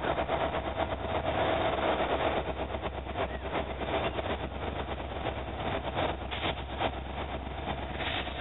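Diesel engine of an approaching CSX freight locomotive running with a steady low rumble.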